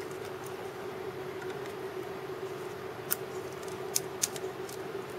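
A faint steady hum with a few small sharp clicks, the clearest about three and four seconds in, from the COB LED lamp and its power cord being handled.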